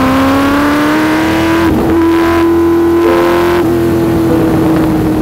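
Racing car engine under hard acceleration, rising in pitch for about the first second and a half, then holding a steady high note at speed.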